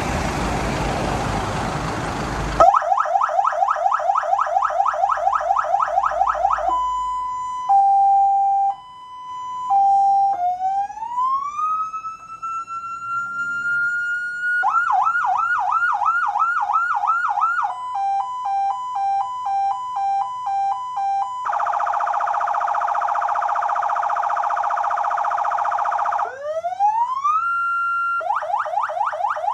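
Electronic emergency-vehicle siren run through its tones: a burst of hiss, then a fast yelp, a hi-lo two-tone, a slow rising wail, faster yelps and warbles, a steady horn blast about two-thirds of the way in, a rising whoop, and a last fast yelp that cuts off.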